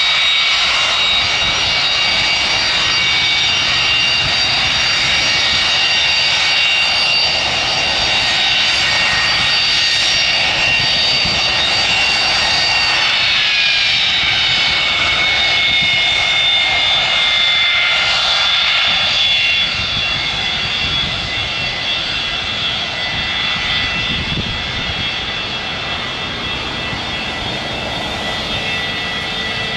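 Boeing 727-200's three rear-mounted Pratt & Whitney JT8D turbofans running at low power as the jet taxis past: a steady jet rush with a high, multi-toned whine over it. About halfway through the whine drops a little in pitch, and soon after the sound eases slightly.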